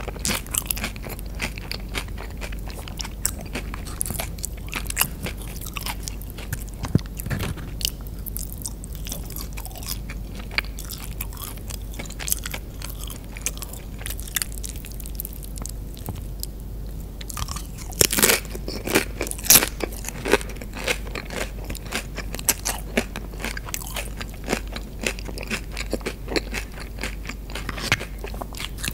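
Close-miked mouth sounds of chewing a burrito bowl, with the crisp crunch of tortilla chips being bitten. A run of louder crunches comes about eighteen to twenty seconds in.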